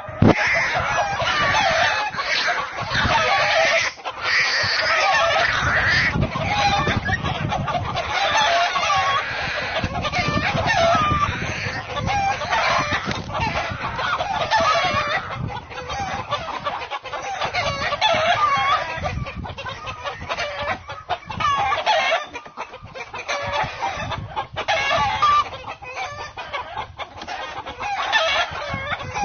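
Chickens clucking and calling, many overlapping calls at once in a steady, busy stream.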